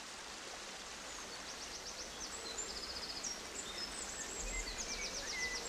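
Outdoor field ambience: a steady hiss with several small birds chirping and singing quick, high trills, most densely from about a second and a half in.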